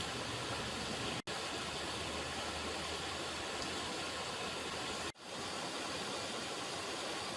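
River water running, a steady dense wash of rushing water. It cuts out for an instant twice, about a second in and again about five seconds in, the second time swelling back in.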